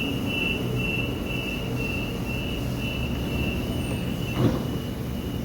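Suburban electric train standing at the platform with its door-closing warning sounding: a high beep pulsing about twice a second for about four seconds, then a held tone, over the train's steady low hum. A single thump about four seconds in as the doors shut.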